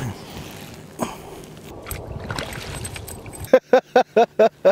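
Water sloshing and splashing in an ice-fishing hole as a fish is hauled up. Near the end a man laughs in quick, even bursts, about five a second.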